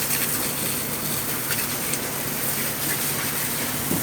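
Steady running machinery: a constant low hum under a dense hiss, with a few light ticks.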